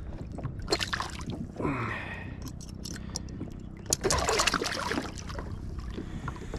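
Hooked catfish thrashing and splashing at the surface beside the kayak while held in a metal lip gripper. The splashing comes in bursts, about a second in, around two seconds, and again about four seconds in.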